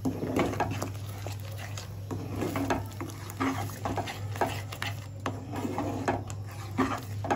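Flat spatula stirring thick gravy around a non-stick pan, mixing in freshly added yogurt, with irregular scrapes and soft knocks against the pan.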